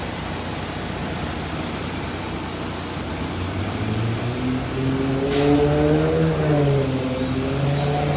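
Motor vehicle engine in street traffic: a steady traffic hum, then an engine that speeds up and gets louder about halfway through, rising and falling in pitch, with a short hiss in the middle.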